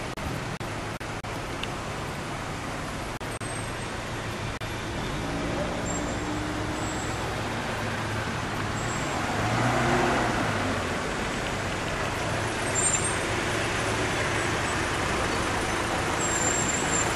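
Road traffic: a line of cars and vans moving past with engines running and tyres on the road, one vehicle passing louder and closer about ten seconds in.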